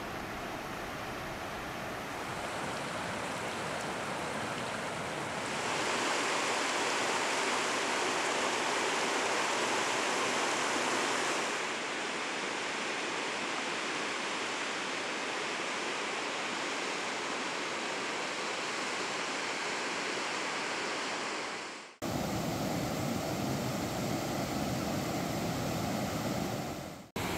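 River rapids rushing over flat rock ledges: a steady, full rush of white water. It briefly cuts out about 22 seconds in and again near the end, then resumes.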